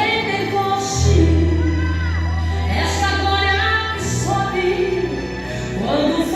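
Christian worship song playing: a sung melody over accompaniment, with a long held bass note about a second in.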